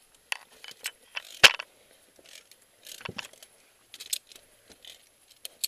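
Irregular metallic clinks and scrapes of climbing gear on a steel safety cable, mixed with boots and hands scraping on loose limestone and scree, with one louder knock about one and a half seconds in.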